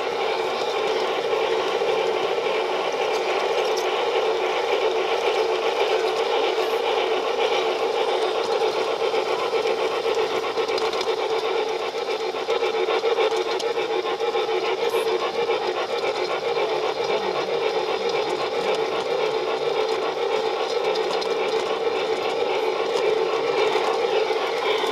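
Model train running along its track, heard up close from a camera riding on the train: a steady mechanical whirr from its motor and wheels.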